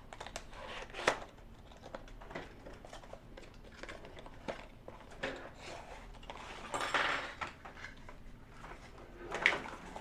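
Cardboard and plastic packaging of a Wi-Fi card being handled and opened: scattered light clicks and rustles, louder around seven seconds in.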